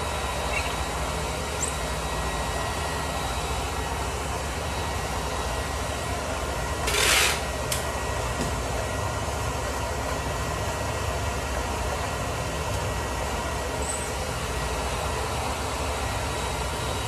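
Hair dryer running steadily on high, blowing to dry a freshly troweled plaster sample. Its motor hum and airflow hiss stay constant, with one brief louder rasp about seven seconds in.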